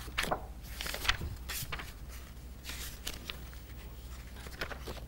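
Paper pages of a textbook being flipped and leafed through by hand: a series of brief paper rustles, most of them in the first three seconds and another near the end.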